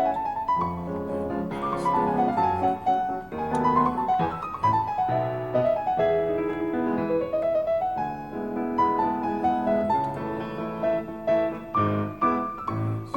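Background piano music: a flowing melody of notes running up and down over a lower accompaniment.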